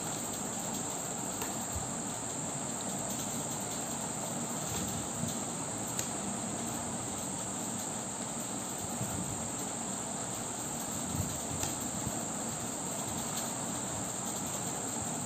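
A steady high-pitched chirring drone over constant background noise, with a few faint ticks about six and eleven seconds in.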